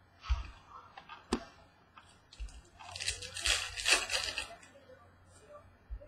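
A few light knocks of cards being handled on a table, then about three seconds in a trading card pack's wrapper crinkling and tearing open for a second or so.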